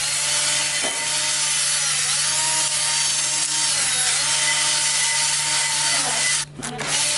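A handheld electric power tool running steadily with an abrasive scrubbing noise. Its motor whine dips and recovers several times as it is pressed against the work. It cuts out for a moment near the end and then starts again.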